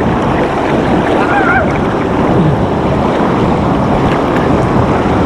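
Loud, steady rush of water from a small river waterfall and its fast current.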